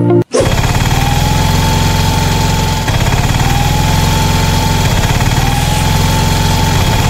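Engine idling sound effect, a steady rumble dubbed over the toy vehicles, looping about every two seconds with a faint rising whine in each loop. Music cuts off just before it starts.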